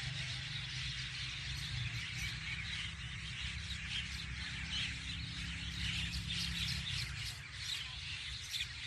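Myna birds calling, a dense run of short overlapping chirps, over a steady low hum that fades away about seven seconds in.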